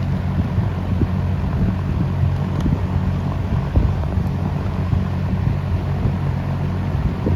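Late-1960s Kel Aire box fan with a GE motor and metal blades running at full speed, a steady low motor hum under the rush of moving air and wind buffeting on the microphone. The fan is somewhat off balance, which the owner says is still not quite right after a previous owner balanced it.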